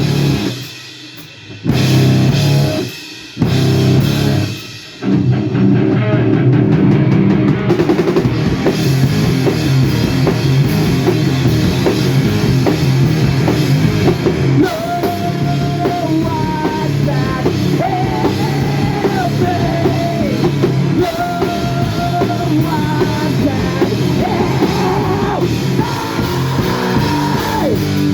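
Live heavy rock band playing loud with drums and distorted guitars. It stops and hits again three times in the first five seconds, then plays on without a break, with a lead guitar line of held, stepping notes over it from about halfway.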